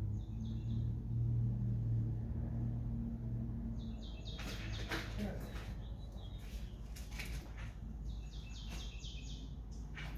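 Birds chirping in short bursts of high calls, with a steady low hum during the first few seconds.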